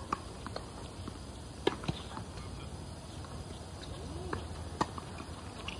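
Tennis ball pops off racquet strings and bounces on a hard court during a rally: sharp single pops a second or more apart, two of them clearly louder than the rest.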